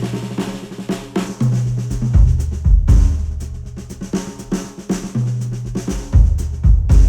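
Instrumental music with a drum beat and a held, deep bass line, played back through a pair of studio headphones and picked up by microphones at the ear cups. The drum hits come in regularly, with heavier low thumps about two seconds in and again near the end.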